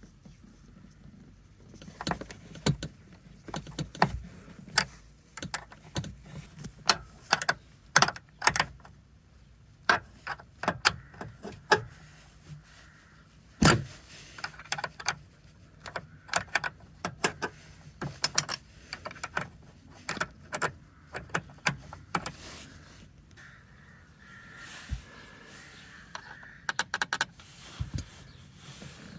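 Irregular metallic clinks and knocks of a spanner and metal fittings being worked around a car's 12V battery terminals and clamp.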